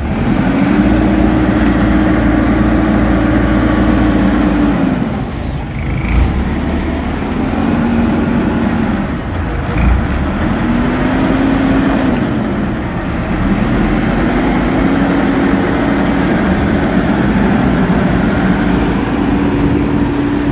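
Bobcat telehandler's diesel engine running close by, its speed climbing and holding for a few seconds, then dropping back, four times over as the machine works.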